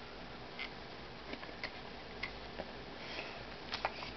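Fingernail picking and scratching at a small paper sticker on a souvenir mummy figure, peeling it off: faint, scattered little clicks and ticks.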